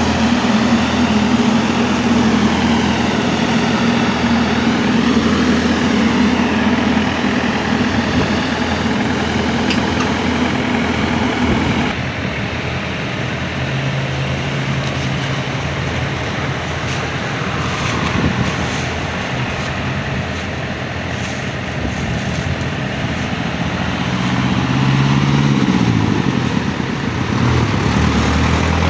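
Crawler combine harvester's diesel engine running steadily. Its note drops about halfway through, then rises and falls as it is revved near the end.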